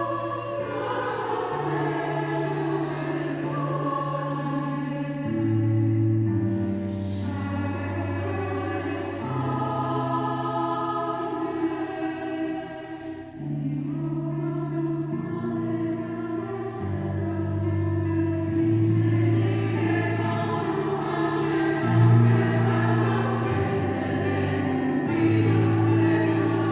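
A choir singing in harmony, moving through long held chords that change every second or two, with low voices carrying a bass line beneath the upper parts.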